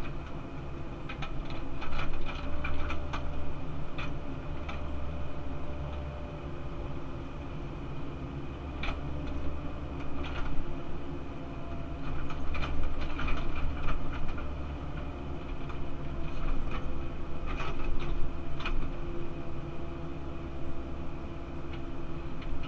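Cat 308 CR excavator's diesel engine running steadily while the machine works, heard from inside the cab, with scattered clusters of sharp clicks and knocks as the bucket and arm move dirt.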